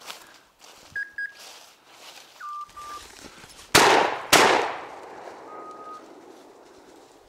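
A shotgun fired twice in quick succession at a woodcock, the two shots about half a second apart, each echoing off the wooded hillside; the birds are being missed, in the hunter's words that he can't hit woodcock today. A few short electronic beeps sound before the shots and once after.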